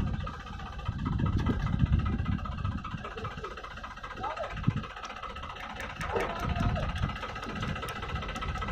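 Farm tractor's diesel engine running steadily under the raised infielder hopper, with a few voices briefly partway through.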